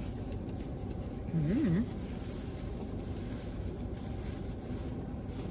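A steady low background rumble, with a short hummed 'mm-hmm' from a person about a second and a half in.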